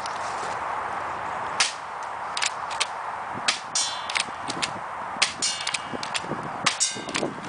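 Double Eagle M56A spring-powered airsoft shotgun being cycled and fired: a string of sharp snaps and clacks, some in quick clusters with a short metallic ring, over a steady hiss.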